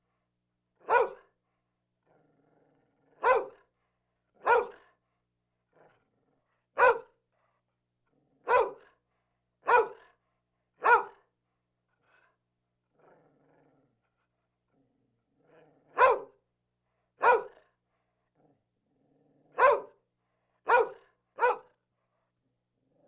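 A dog barking in single, separate barks, about a dozen of them, spaced irregularly with a longer pause near the middle.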